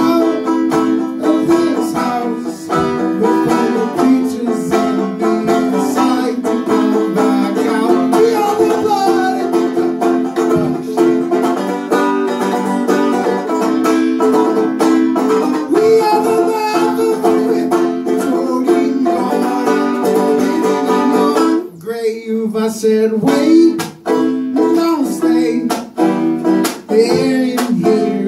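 Banjo picked steadily in a live solo performance, thinning out briefly about three-quarters of the way through before the picking resumes.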